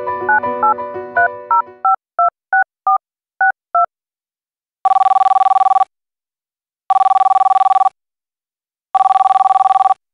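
Phone keypad tones as a number is dialled, a quick string of short two-note beeps, while piano music fades out. Then three one-second warbling electronic rings about two seconds apart: the call ringing.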